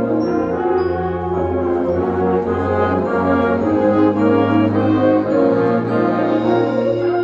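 High school indoor winds ensemble playing brass-heavy sustained chords over a held low bass note, the chords shifting every second or so.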